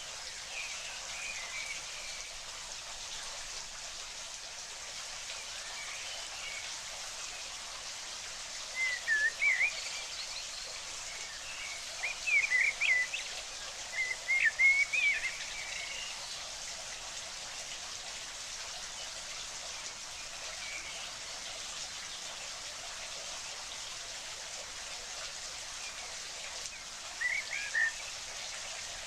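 Steady hiss of water, like rain, with a small bird twittering in short warbling bursts four times, about nine seconds in, twice around twelve to fifteen seconds, and again near the end.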